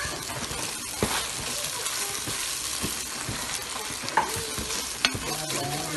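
Onion and grated tomato frying in a pan with a steady sizzle, a utensil stirring and knocking against the pan a few times.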